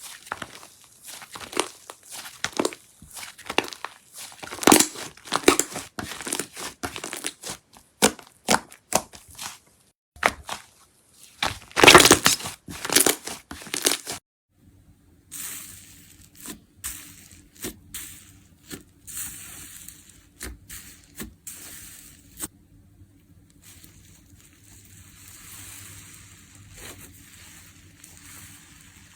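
Slime being squeezed, poked and stretched by hand, with dense crackling and popping. About halfway through it cuts to a quieter take with softer crackles over a low steady hum.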